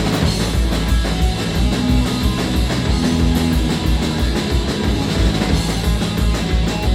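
Punk rock band playing live: loud, full-band music with guitars and a steady beat, in an instrumental stretch without singing.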